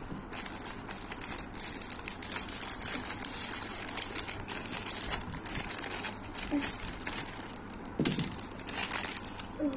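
Metallised plastic wrapper crinkling as it is unwrapped by hand from a switch plate, in irregular crackles with a louder patch about eight seconds in.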